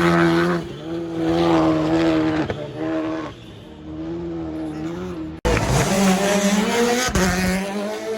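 Rally car engine revving hard at high rpm, its pitch holding, dropping on lift-offs and gear changes, then climbing again. The sound breaks off abruptly about five seconds in, and a fresh burst of hard revving rises straight after.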